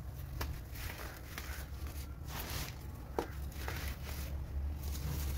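Compressed baking soda chunks crushed and crumbled between the fingers into powder, giving soft crunches and crumbling with scattered crackles and one sharper crack about three seconds in. A steady low hum runs underneath.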